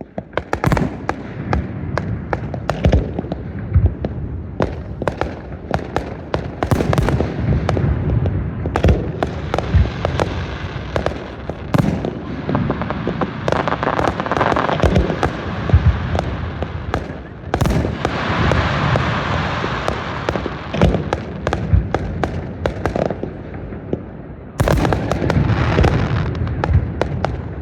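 Fireworks display: a rapid, continuous barrage of shell bursts, many bangs close together, with stretches of dense crackling in between and a sudden louder volley near the end.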